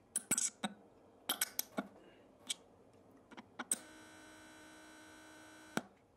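A logo sound effect: a scatter of sharp clicks and taps, then a steady electrical buzz that switches on with a click a little before the middle and cuts off with another click near the end.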